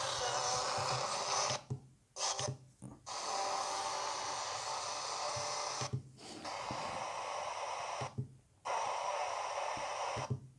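Sangean DT-250 pocket radio on FM giving out hiss and weak station sound while it is stepped up the dial one frequency at a time. The audio mutes briefly about five times, once at each tuning step, with a small click of the tuning button.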